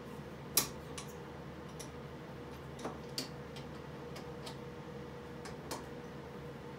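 Scattered metallic clicks and taps as hand tools work at the chuck adapter on a mini metal lathe's spindle, with one sharper click under a second in. A steady faint hum runs underneath.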